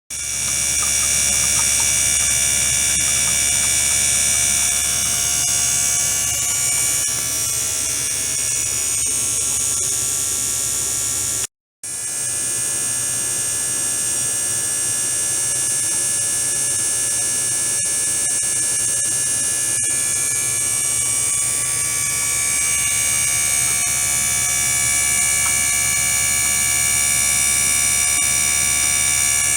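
Small water-circulation pump and ultrasonic transducer equipment running in a water tank, giving a steady electric hum with several high-pitched whining tones over it. The sound cuts out for a split second about twelve seconds in.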